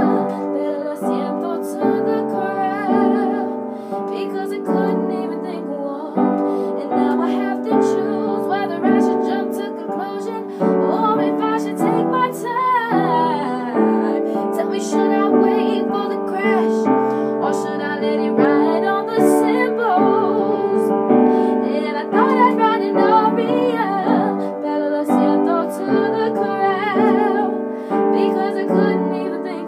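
Piano played in chords with both hands, with a girl's voice singing over it at times, the sung notes wavering with vibrato.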